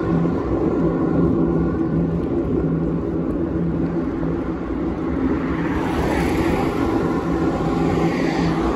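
Ride along a road on a two-wheeler, heard from the handlebars: wind rumbling on the microphone under a steady droning hum. A passing car swells in and fades away near the end.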